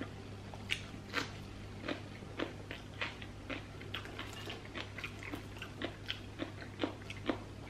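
Close chewing of a mouthful of rice and cucumber slices, small wet mouth clicks and crunches coming irregularly about twice a second, over a steady low hum.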